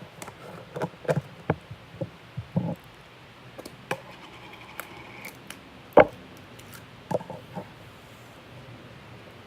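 Slime being squeezed and poked by hand, making irregular wet clicks and pops, with the loudest pop about six seconds in.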